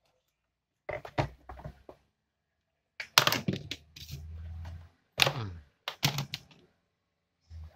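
Clusters of sharp plastic and metal clicks, knocks and scrapes as a screwdriver pries the bottom cover plate off a Philips blender's motor base and the cover is lifted away. There is a short low hum just before the middle and a dull knock near the end.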